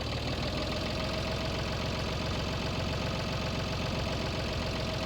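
Tractor engine running steadily at idle, with a faint steady whine over the rumble.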